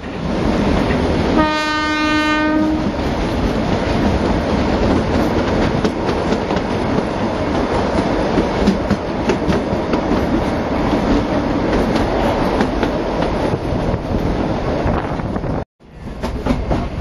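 Kalka–Shimla narrow-gauge train heard from aboard: its horn sounds one long blast about a second and a half in, then the carriage runs on with a steady rumble and wheel clicks over the rail joints. The sound cuts out briefly near the end.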